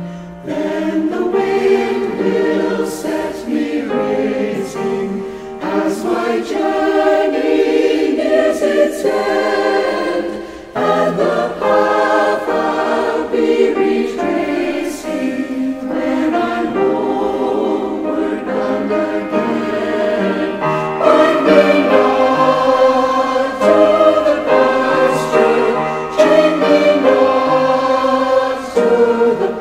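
Amateur community choir singing a slow song in parts, several voices together in harmony.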